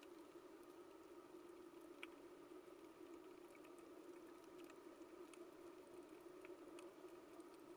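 Faint underwater coral-reef ambience: a steady low hiss with scattered faint clicks and snaps.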